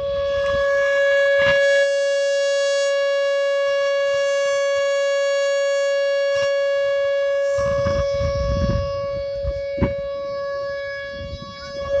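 Whelen Vortex R4 electronic outdoor warning siren sounding its steady alert tone, a single held pitch at an even loudness, signalling a tornado warning drill. A low rumble passes about two-thirds of the way through, and a sharp click comes near the end.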